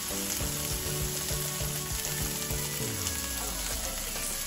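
Chopped garlic, onion and pesto sauce sautéing in olive oil in a skillet, a steady sizzle.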